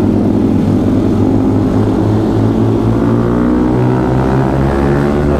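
Yamaha MT-15's single-cylinder engine pulling under way, its pitch rising gradually through the second half as the bike accelerates.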